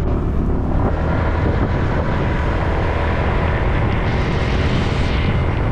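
Small motorcycle's engine running steadily with wind rushing past, heard from the pillion seat while riding.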